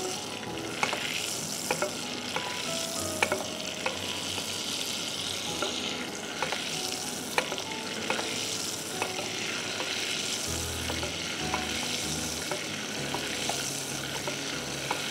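Butter sizzling as it melts in a pan on the stove, with a spoon stirring and clicking against the pan at irregular moments.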